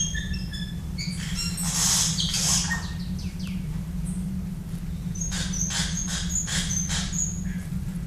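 Tropical birds calling: short high whistles, a harsh call about two seconds in, then a quick run of about six harsh notes from about five seconds in, over a steady low hum.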